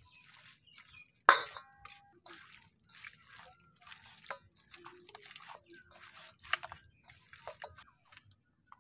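Raw marinated chicken pieces being kneaded and turned by hand in a steel bowl: repeated wet squelching and squishing. About a second in, there is a sharp knock on the bowl with a brief metallic ring.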